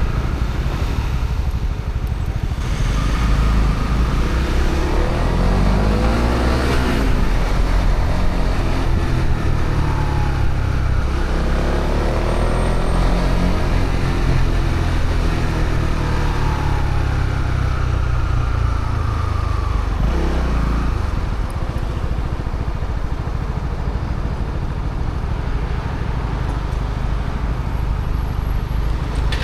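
Honda CB125R's single-cylinder 125 cc four-stroke engine through its stock exhaust, ridden on the road, its pitch rising and falling several times as it accelerates and shifts, over a steady low rumble of wind and road noise.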